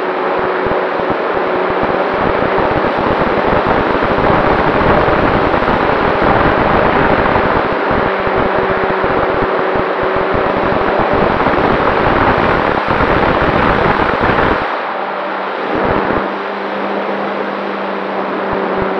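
Model airplane's propeller and motor running in flight, heard from an onboard camera with heavy wind rushing and crackling over the microphone and a steady hum underneath. About fifteen seconds in the rushing noise drops sharply, leaving the steady hum.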